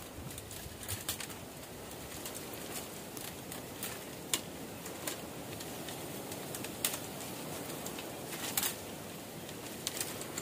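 Dry bamboo stems creaking, rustling and snapping as gloved hands push into a dense clump and break at the shoots: scattered sharp cracks a second or more apart over a steady outdoor hiss.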